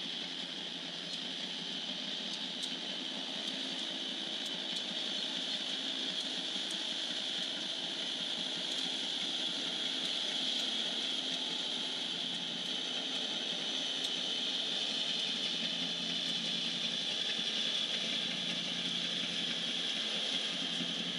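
Loaded coal train passing: two EMD SD80MAC diesel-electric locomotives run by, followed by loaded coal hoppers rolling on the rails, a steady noise with some rattle that grows slightly louder through the passage.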